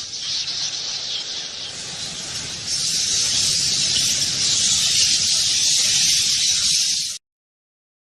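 Swarm of bats: a dense, high-pitched hissing mass of sound. It grows louder about three seconds in and cuts off abruptly about a second before the end.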